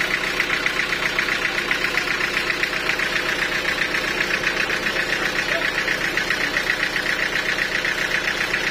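Sawmill machinery running steadily without cutting, with a fast, even pulsing beat.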